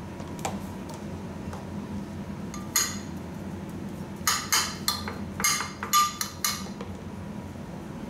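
A metal spoon clinking and scraping against food containers while spooning out basil paste: one clink about three seconds in, then a quick run of about seven ringing clinks.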